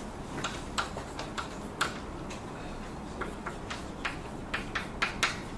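Irregular light clicks and taps, about fifteen in five seconds, over a faint steady room hiss.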